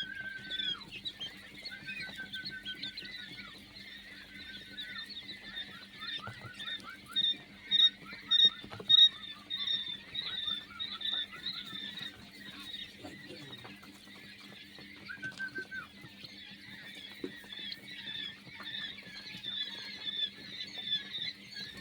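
A flock of quail chirping and peeping, many short high calls overlapping, with a run of louder calls about seven to nine seconds in. A faint steady low hum runs underneath.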